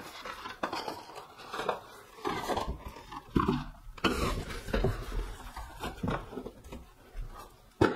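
Packaging of a large boxed makeup set being handled and unwrapped: irregular rustling and crinkling with scattered knocks. The strongest knock comes about three and a half seconds in, and a sharp knock comes near the end.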